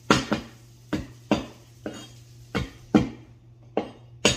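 Cleaver chopping on a wooden cutting board: about nine sharp, uneven chops, roughly two a second.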